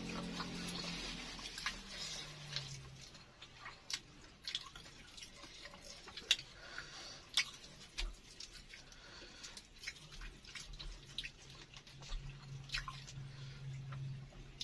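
Close-up eating sounds: a crispy egg martabak (baklor) being chewed, with irregular sharp crunches and mouth clicks.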